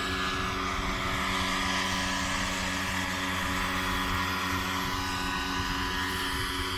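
An 18 kg electric RC scale model of an AgustaWestland AW139 helicopter, driven by a Kontronik Pyro 800-48 motor, hovering low. Its motor and gearbox whine steadily under the whoosh of the rotor blades, at an even level throughout.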